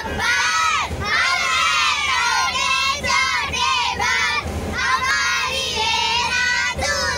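A group of young children shouting together in high voices, overlapping and without a pause.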